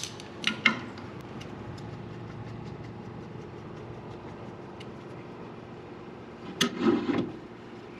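Hand work on sawmill parts: a couple of sharp clicks and knocks about half a second in, and a cluster of knocks near the end, over a faint steady hum.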